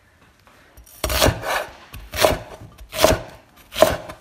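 Chinese cleaver chopping scallion on a wooden cutting board: a slow run of about five sharp chops, starting about a second in and falling roughly one every three-quarters of a second.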